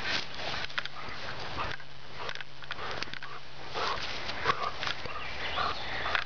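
Young Great Dane cross running through long grass with a long stick in her mouth: irregular rustling and swishing of grass and stick, with the dog sniffing.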